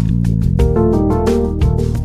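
Background music with a steady beat over sustained bass notes, with a short melodic run of changing notes in the middle.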